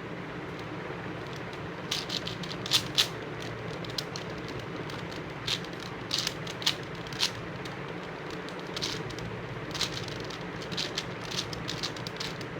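5x5 Rubik's cube being turned by hand: three bursts of quick plastic clicks and clacks as its layers are twisted, over a steady background hiss.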